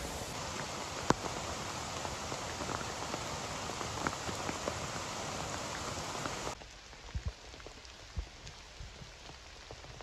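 Mountain stream rushing over rocks in a steady wash, with a sharp tick about a second in. About six and a half seconds in it cuts suddenly to a quieter patter of rain, with a few soft, low footsteps on the wet forest path.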